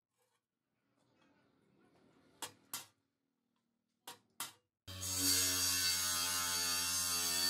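A small hammer strikes a steel hoe blade four times, in two quick pairs. About five seconds in, a workshop machine's electric motor comes in suddenly and runs loud and steady, with a hum and a hiss.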